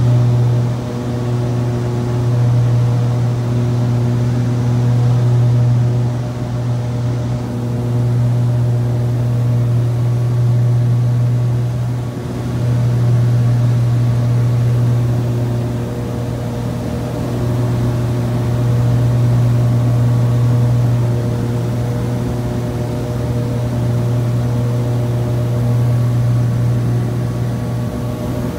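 Piper PA-31 Navajo's twin piston engines and propellers droning steadily inside the cabin on the landing approach. The drone swells and fades slowly every few seconds.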